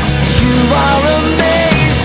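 Background music: a band playing, with a pitched melody line gliding between notes.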